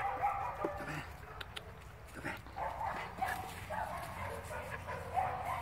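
Puppy making repeated short, high-pitched calls while playfully mouthing and tugging at a person's hands.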